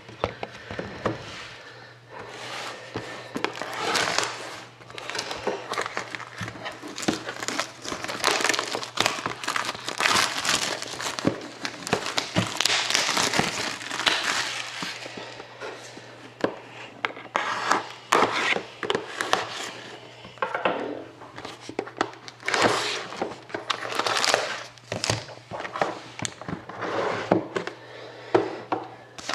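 Plastic wrapping and cardboard packaging crinkling and rustling in an irregular run as a sealed trading card box is unwrapped and opened. Near the end a foil-wrapped card pack is handled.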